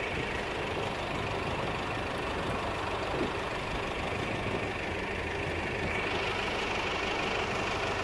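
Truck engine idling steadily, a low even rumble; it is the tow truck that delivered the broken-down pickup.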